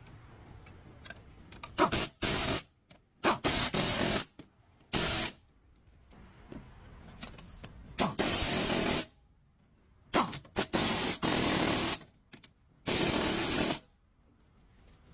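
Compressed air hissing in about six short, sharp-edged bursts of up to two seconds each, like a blow gun being triggered on and off.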